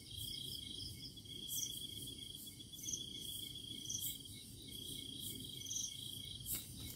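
Crickets trilling at night in long pulsed trills, joined by a higher, shorter chirp every second or two.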